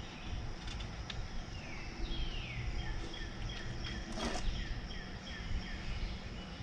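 A bird calling in a run of quick falling whistled notes, over a steady low outdoor rumble, with a single knock about four seconds in.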